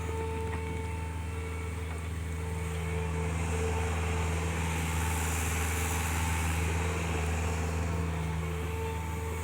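Mini excavator's diesel engine running steadily, a low drone with a steady higher whine over it.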